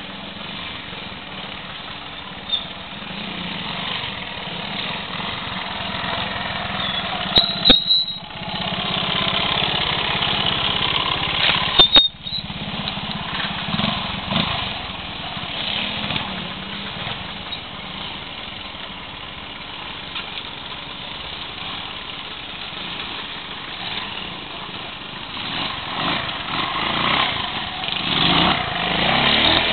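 Vintage trials motorcycle engine running at low speed, its pitch and loudness rising and falling with throttle as it climbs through a section. A couple of sharp knocks partway through.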